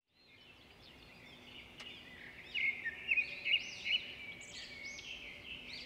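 Several birds chirping and calling in quick, overlapping short notes, fading in from silence and growing louder about two and a half seconds in.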